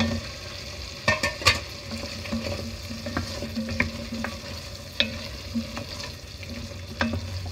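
Cut brinjal (eggplant) frying in an onion-tomato base in a cast-iron pan while being stirred with a spoon: a steady sizzle with knocks and scrapes of the spoon against the pan, the sharpest of them about a second in.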